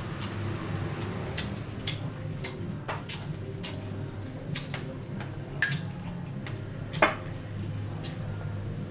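Chopsticks tapping and scraping against a metal tray of salad, with chewing: scattered sharp clicks, the loudest about seven seconds in, over a steady low hum.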